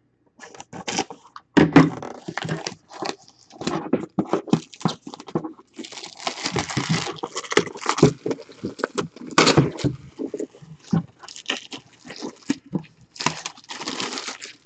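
Plastic shrink wrap being torn and peeled off a cardboard box, in irregular crinkling rips and rustles with longer tearing stretches a few times.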